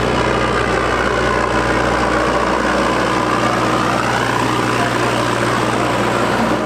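JCB backhoe loader's diesel engine running steadily as the machine drives slowly past close by, its pitch rising slightly about two-thirds of the way through.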